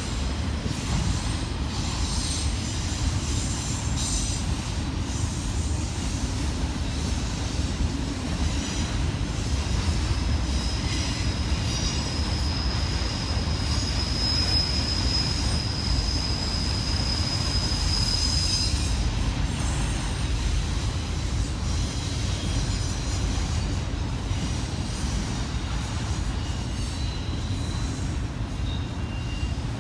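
Freight train of enclosed autorack cars rolling past, with a steady low rumble of wheels on rail. A high, steady wheel squeal rises over it about twelve seconds in and lasts some seven seconds, and a few shorter, fainter squeals come near the end.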